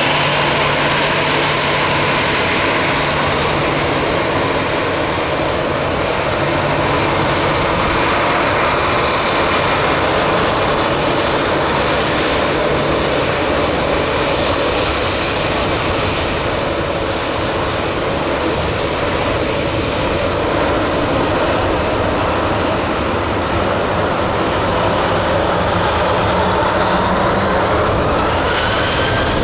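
Airbus A320-214's CFM56 turbofan engines running, a loud steady jet noise with a thin whine over it. Near the end the whine rises sharply in pitch as the engines spool up.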